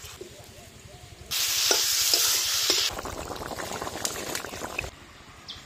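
Pieces of soya muitha dough frying in hot oil. A loud sizzle starts suddenly about a second in, eases to a softer crackle with small pops, and fades near the end.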